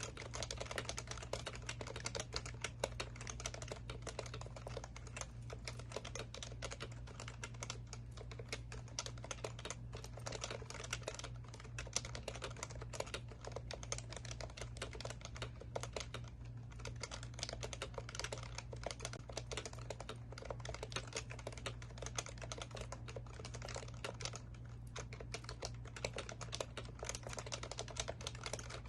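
Fast, continuous typing on an HHKB Professional Classic keyboard with Topre electrostatic capacitive switches: a dense, unbroken run of keystrokes. A steady low hum sits underneath.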